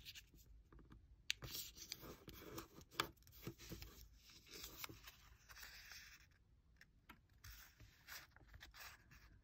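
Faint rustling and crinkling of a small sheet of origami paper being handled and folded, with scattered soft clicks and scrapes of fingers on the paper.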